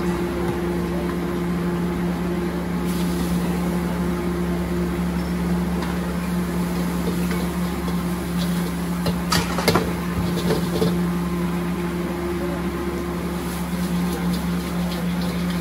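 Steady roar and hum of a street wok stove's burner running, with a few sharp metal clanks, the spatula striking the wok, about nine to ten seconds in.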